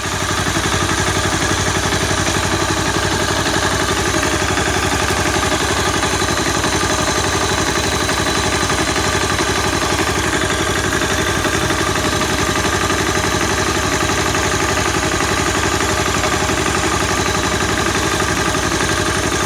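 Honda CBR250R's single-cylinder four-stroke engine idling steadily, with a light clatter that the owner puts down to a loose cam chain tensioner letting the cam chain hit against the engine.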